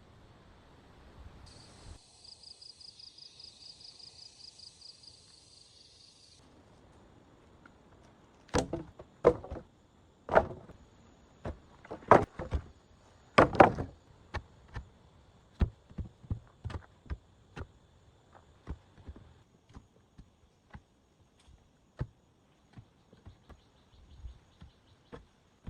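A high, rapid trill, about ten pulses a second, for a few seconds. Then a run of sharp, irregular knocks and thuds, loudest around the middle, that thin out into sparse taps.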